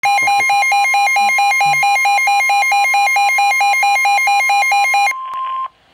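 Midland WR120 weather radio's alert alarm: a loud electronic alarm beeping rapidly between two pitches, about five times a second, over a steady tone, signalling an incoming NOAA warning. About five seconds in the beeping cuts off with a click. The steady warning tone carries on more quietly for about half a second, then stops.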